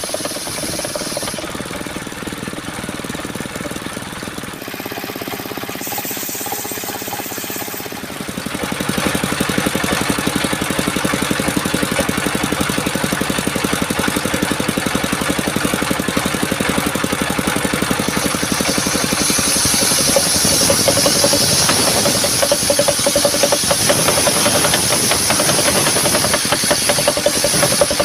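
Engine-driven circular sawmill running steadily. It gets louder about eight seconds in, and a higher hiss joins about two-thirds of the way through.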